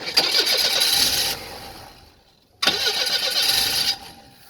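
Car engine cranked on its starter twice, each try about a second and a half long with a pause between, without catching. It is a hard-starting engine, primed with starting fluid, that still won't fire.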